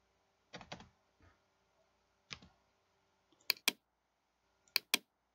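Computer mouse clicking: a few soft clicks, then two quick pairs of sharp double-clicks near the end.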